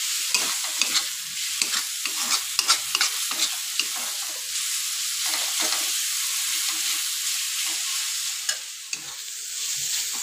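Ground onion, garlic and green chilli paste sizzling in oil in a metal kadhai, with a steady hiss of frying. A metal spatula scrapes and taps against the pan as the masala is stirred, in a quick run of clicks over the first few seconds and fewer after.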